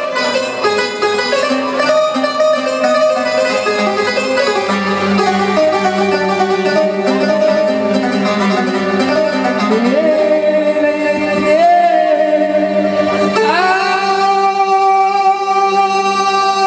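Moroccan folk music: a man sings into a microphone over plucked string accompaniment. About two-thirds of the way through, the melody slides up into a long held note.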